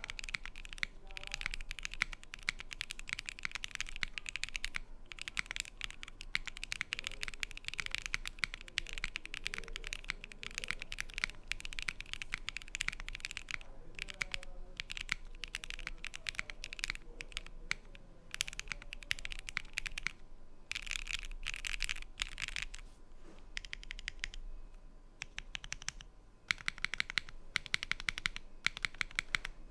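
Fast typing on a Badger60 mechanical keyboard with stock Kailh BCP switches in an aluminium plate, no foam. The keystrokes come in dense runs of sharp clacks, broken by a few short pauses.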